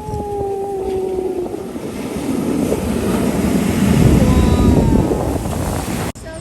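Wind buffeting the microphone outdoors, a loud rumbling rush that swells to its strongest about four seconds in and cuts off suddenly near the end. A short held tone, falling slightly, sounds at the start.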